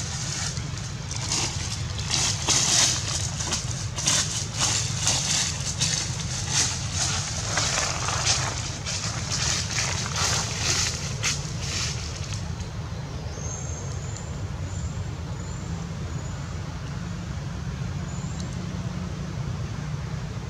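Dry leaf litter crackling and rustling in irregular bursts for about the first twelve seconds, over a steady low rumble. After that, a few faint short high chirps sound over the rumble.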